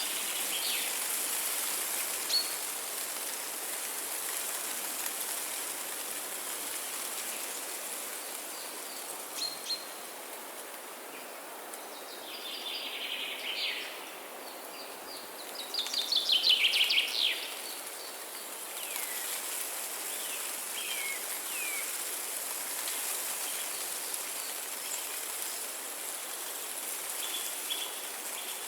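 Several wild birds calling and singing over a steady hiss of running water. There are scattered short chirps, a brief song a little before the middle, and the loudest passage just past the middle: a quick run of repeated falling notes. A few short slurred calls follow.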